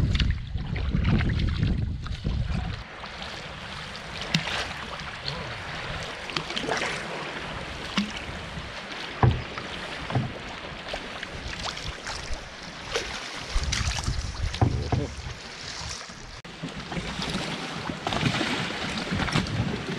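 Canoe being paddled on choppy water: water splashing and lapping against the hull, with a few sharp paddle knocks. Wind rumbles on the microphone in the first few seconds and again about two-thirds of the way through.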